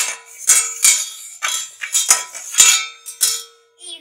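A metal slotted spoon clanking against a small stainless steel pot, about seven strikes at roughly two a second, each with a jingly ring and the pot ringing on between them.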